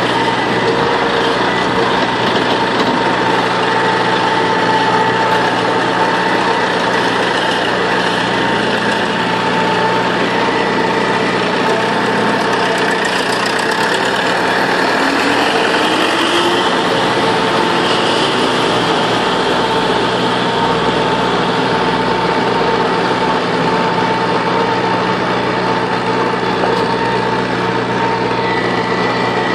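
Falke vertical feed mixer wagon running, its tub mixing hay and silage, with the tractor engine that drives it running steadily. It is an unbroken mechanical hum.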